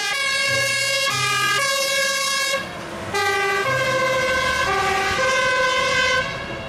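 Fire engine's two-tone siren sounding as the truck pulls away, its note stepping back and forth between pitches, with a brief drop in level about two and a half seconds in.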